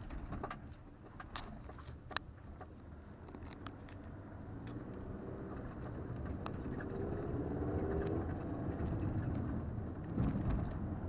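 Cabin sound of a 2020 Toyota RAV4 driving off-road on a sandy, stony dirt track: a steady low tyre and suspension rumble with scattered ticks and knocks. The engine note rises from about six to nine seconds in, and a heavier thump comes near the end.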